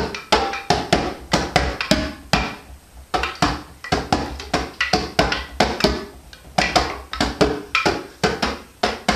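Djembe played with the hands together with a hanging wooden sound stick (Klangholz) struck with a stick, in a loose, lively beat of about three strikes a second, each hit ringing briefly.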